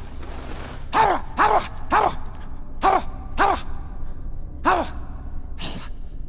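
A man's short barking cries, six of them, coming in pairs about half a second apart, each rising and falling in pitch, with a shorter rasping burst near the end: the growling barks of an actor playing a dog-devil.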